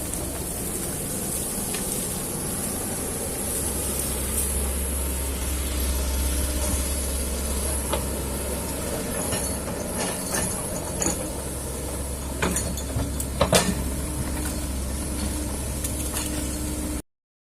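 Kobelco excavator's diesel engine running steadily, with a few sharp knocks and clanks in the later seconds; the sound cuts off suddenly near the end.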